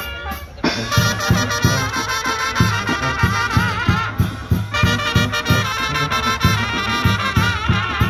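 Mariachi-style instrumental break: trumpets play a melody with a wide vibrato over a steady low rhythmic beat, and the horns stop briefly about four seconds in.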